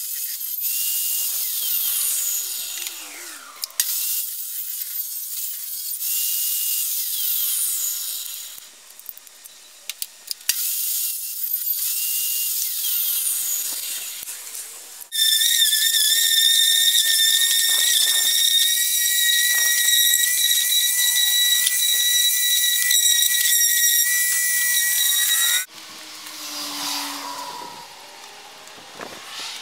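Benchtop table saw running and ripping wooden boards: a high-pitched motor and blade noise, in several short passes with abrupt breaks. From about halfway through, a louder steady whine lasts ten seconds, then the sound drops off near the end.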